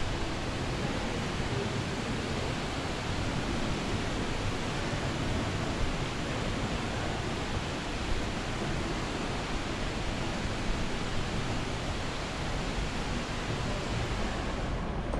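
Steady rushing background noise of an open-air shopping street, with a couple of faint knocks about halfway through.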